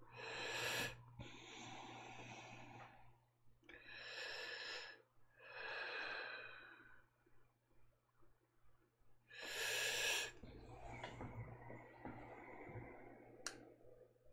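A person breathing close to the microphone: three slow breaths, each a short, sharper inhale followed by a longer exhale, over a low steady hum. A single click near the end.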